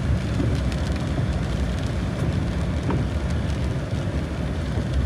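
Steady low rumble of a truck driving on a wet road, heard from inside the cab, with rain on the windshield.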